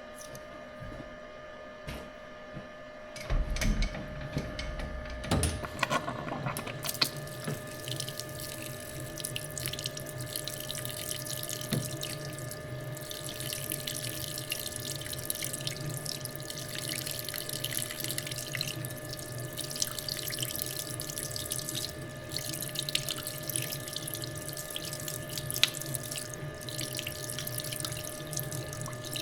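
Metal lathe running with a steady whine, and from about seven seconds in, cutting coolant flows and splashes steadily over the work.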